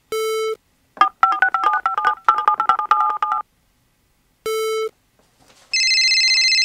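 Mobile phone keypad tones: a short beep, then a quick run of touch-tone dialing beeps as a number is keyed in, another short beep, and near the end a steady high electronic tone begins.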